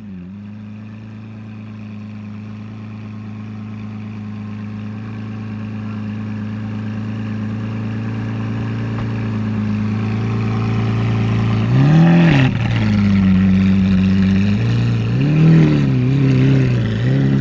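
Lamborghini Aventador S's 6.5-litre naturally aspirated V12 idling steadily and growing louder, then a quick throttle blip about twelve seconds in and two smaller blips near the end.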